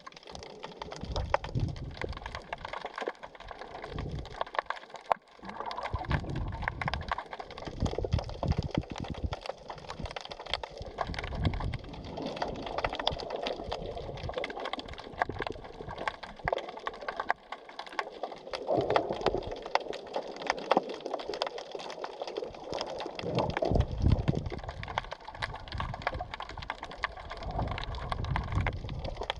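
The sea heard underwater while snorkeling: a constant dense crackle of tiny clicks over uneven low rushes of moving water.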